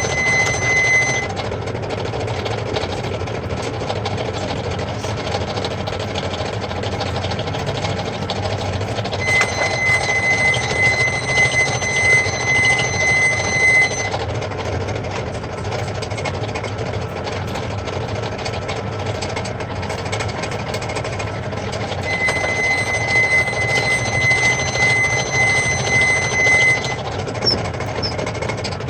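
Metal lathe running steadily while cutting a square thread. Three times a high-pitched steady squeal of several seconds rises over the machine hum: briefly at the start, then for about five seconds each, a little after the middle and near the end, which is typical of the cutting tool on a threading pass.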